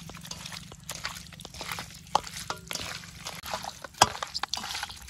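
Hands mixing raw, freshly washed chicken pieces with turmeric powder: a string of irregular wet smacks and clicks as the meat is turned over.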